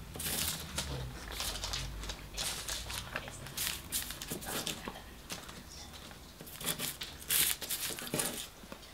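Brown paper food wrapping crinkling and rustling in short, irregular bursts as a hand picks chips off it, with the loudest rustle about seven seconds in.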